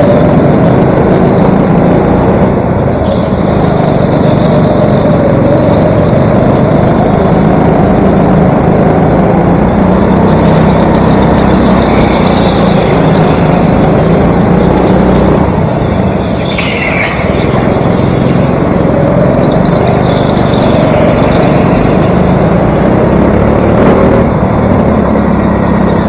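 Onboard sound of a racing go-kart's small engine running hard, its pitch rising and falling through the corners. About sixteen seconds in there is a brief high squeal.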